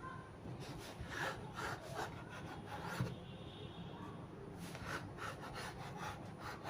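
Knife cutting rolled-out chin chin dough into small pieces on a cutting board: repeated scraping strokes of the blade against the board, with one sharper knock about three seconds in.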